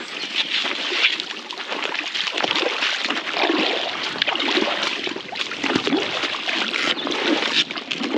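Water splashing and sloshing in a continuous, irregular run of small splashes.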